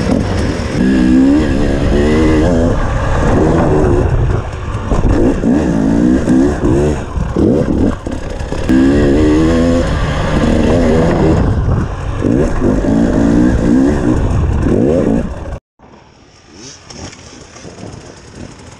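Enduro dirt bike engine heard close up, revving up and down again and again as the bike is ridden over rough ground. About three-quarters of the way through it cuts off abruptly, and a much quieter engine sound goes on.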